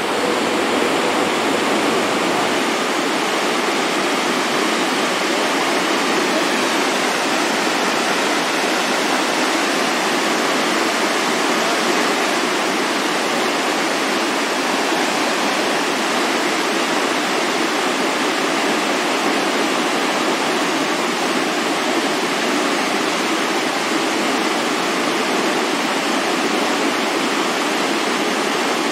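Floodwater pouring over a concrete dam spillway and crashing into churning whitewater below: a steady, unbroken rush of water.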